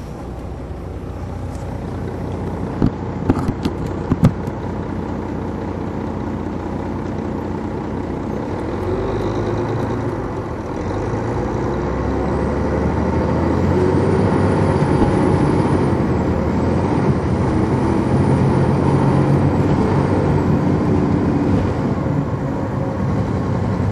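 Detroit Diesel Series 60 diesel engine of a 2002 MCI D4000 coach, heard from inside the bus, running and getting steadily louder, with a brief dip about ten seconds in. A few sharp clicks sound about three to four seconds in, and a thin high whine runs through the second half.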